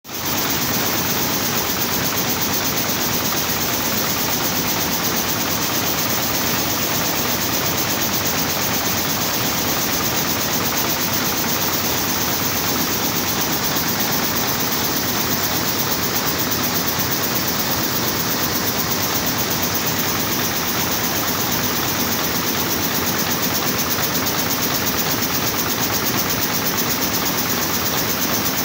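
Toyota JAT810 air-jet loom weaving jacquard terry towels at full speed: a steady, rapid mechanical clatter of the reed beating up each pick, over a continuous high hiss.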